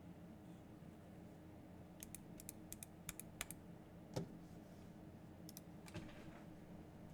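Faint, scattered key presses on an SK61 mechanical keyboard with lubed Gateron Black linear switches. A handful of keystrokes start about two seconds in, with one louder press near the middle and a few more after it.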